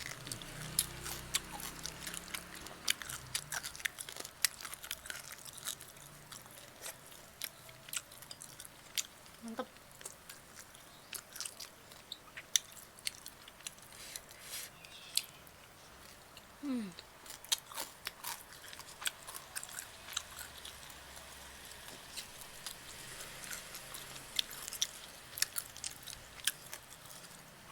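Close-up mukbang chewing of grilled chicken: irregular wet clicks and smacks of mouths biting and chewing, with a short appreciative hum or word now and then.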